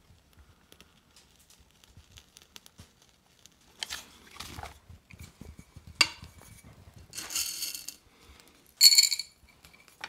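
Parts of an OE Fixie manual coffee grinder being handled and fitted together: faint taps, a sharp metal click about six seconds in, a rustle, and a louder ringing metallic scrape-clink near the end.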